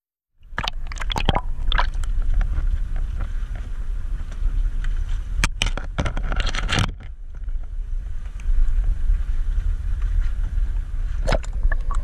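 A fishing boat's engine running with a steady low rumble, cutting in suddenly about half a second in. Scattered knocks and splashes sound over it as a fish is netted beside the hull.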